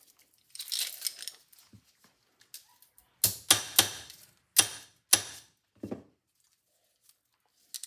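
Metal parts of a gramophone spring barrel and its steel mainspring handled on a workbench: a short rustle, then about six sharp metallic clicks and clinks in quick succession.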